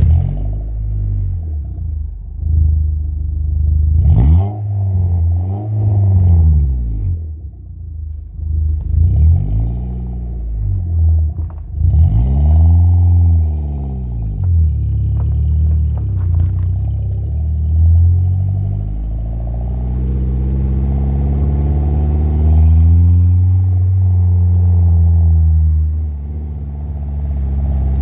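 Car engine breathing through a Mugen Sport FI 90 aftermarket bass muffler, with a deep exhaust note. It is revved up and back down several times, then climbs more slowly in pitch under acceleration.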